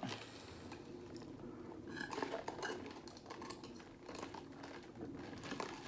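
Faint eating sounds: quiet chewing and a few light clicks of a spoon against a plastic coleslaw tub.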